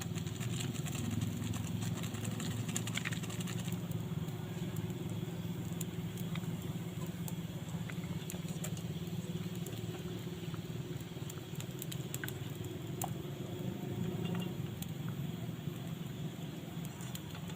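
Banana-flower stir-fry cooking in a pan over the fire: a steady low rumble with scattered light clicks and ticks.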